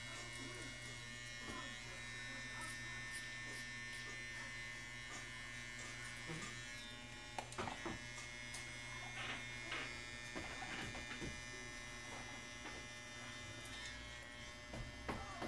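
Andis Master Black Label hair clipper, with its magnetic motor, running with a steady buzz as it cuts short hair close to the scalp. A few light clicks and knocks come in the middle.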